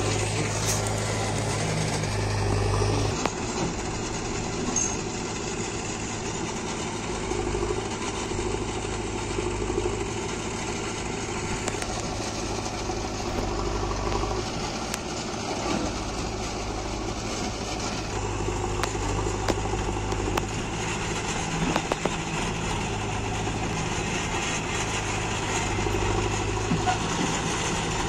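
Diesel engines of a JCB 3DX backhoe loader and a farm tractor running steadily at low revs, a constant low hum with a few light knocks.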